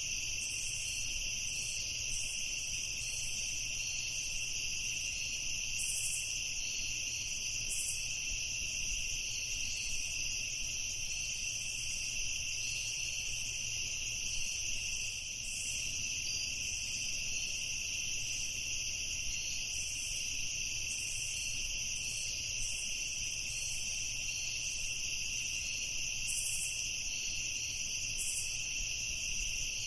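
Night insect chorus: a steady, high-pitched trilling that never lets up, with brief higher chirps scattered through it.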